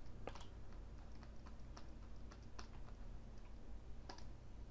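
Faint, irregular clicks and taps of computer input, a few a second, over a low steady hum.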